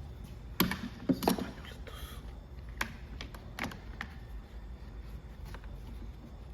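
Scattered clicks and knocks of tools and small parts being handled during work on a string trimmer's clutch: a quick cluster about a second in, then a few single clicks, over a low steady hum.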